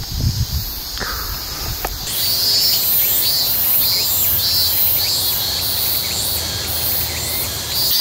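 Insects singing in the woods: a shrill, high song in regular pulses, about one and a half a second, that comes in about two seconds in. Before it there is a low rumble with two sharp knocks.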